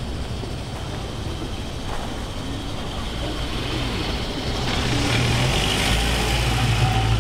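A van driving past close by, its engine hum and tyre noise growing louder over the second half.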